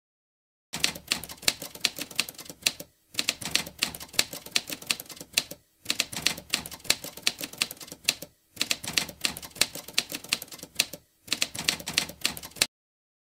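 Typewriter keys clacking in quick strokes, in five runs of typing separated by short pauses, then stopping abruptly near the end.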